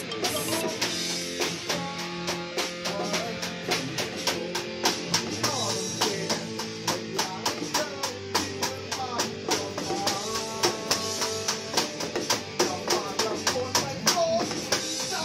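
Electronic drum kit and electric guitar playing together: a steady drum beat with struck hits several times a second, under held guitar notes and a melody line.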